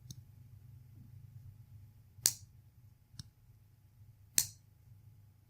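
Moki-made lockback folding knife being worked open and shut: two sharp clicks of the blade and lock, about two seconds apart, with a couple of fainter clicks around them.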